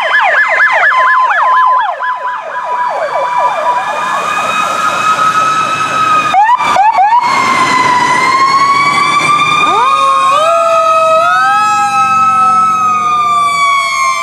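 Several fire department emergency vehicle sirens sounding together as the vehicles pass. Fast repeated yelp sweeps come first, then slower wailing sirens that rise and fall, with another siren climbing in pitch about ten seconds in.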